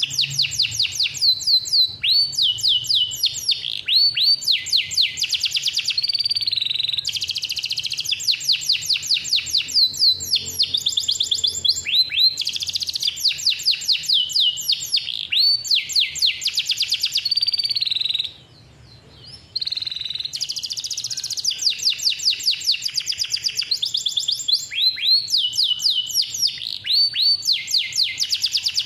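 Domestic canary singing a long, loud song of rapid trilled rolls, runs of quick repeated falling notes, with one short pause about eighteen seconds in.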